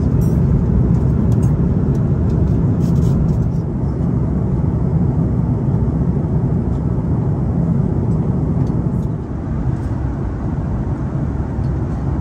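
Steady low rumble of an Airbus A340 cabin at cruise, from engine and airflow noise, even and unchanging.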